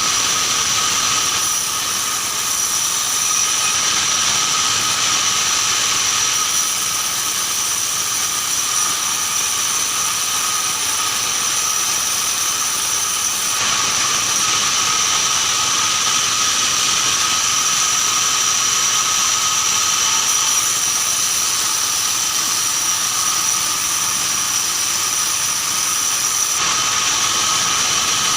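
Band sawmill running steadily with a high whine, its blade sawing keranji timber.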